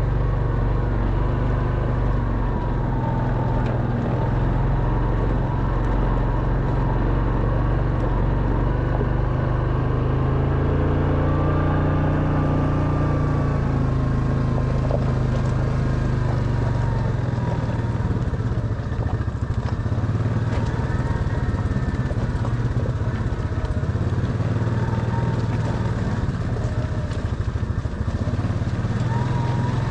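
Quad bike engine running steadily as it climbs a rocky scree track, its pitch rising and falling about a third of the way in as the throttle changes.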